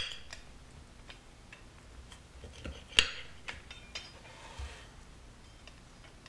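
Metal pizza-cutter wheel clinking against the serving dish while slicing a pizza: a sharp clink at the start and another about three seconds in, with lighter ticks and clicks between.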